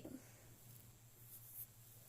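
Near silence: room tone with a faint steady low hum and a couple of faint ticks.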